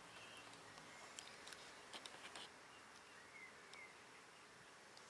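Near silence: faint outdoor ambience with a few soft clicks around two seconds in and faint high chirps.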